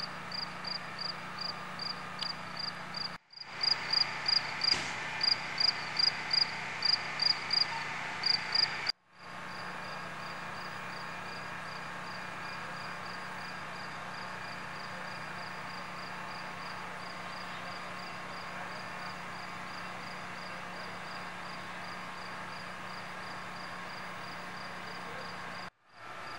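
Crickets chirping about twice a second, a regular high chirp that is much louder for several seconds near the start, over a steady low hum.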